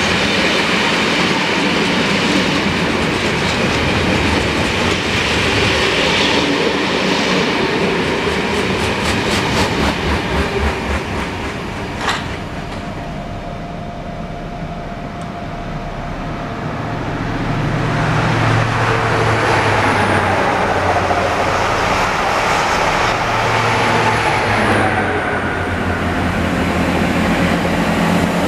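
Loaded freight wagons rolling past, their wheels beating out a steady clickety-clack over the rail joints before fading away about twelve seconds in. Later a diesel multiple unit approaches, its engine growing louder with a faint high whine over it.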